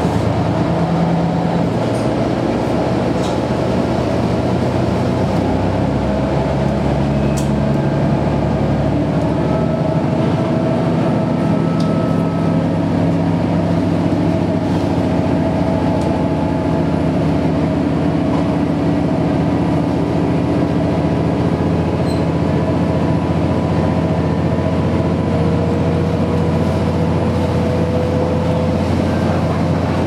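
KiHa 110 series diesel railcar pulling away from a station, heard from inside the passenger cabin. The diesel engine runs under load as the train gathers speed; its note shifts up in the first few seconds, then holds steady. A thin whine slowly rises in pitch near the end, over steady running noise.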